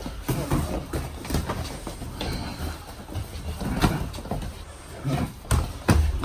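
Boxing gloves smacking on gloves and bodies as two fighters trade punches and kicks, with scuffing and thuds of feet on a wooden floor. Several sharp hits at irregular moments, the loudest near the end.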